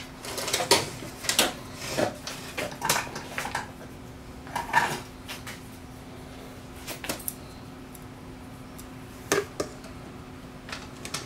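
Sheet-metal shield of a TV/VCR combo being handled and pressed into place over the VCR mechanism: a quick run of metallic clicks and rattles over the first five seconds, then a few scattered clicks, over a faint steady hum.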